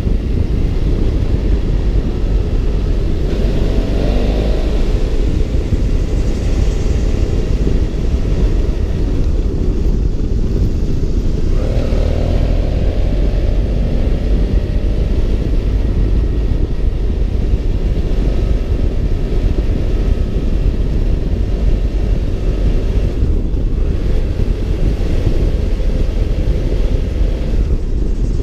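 BMW F650 GS Twin's parallel-twin engine running while riding, heard from on the bike over a constant low rumble. The engine note rises briefly twice, about four seconds in and again about twelve seconds in.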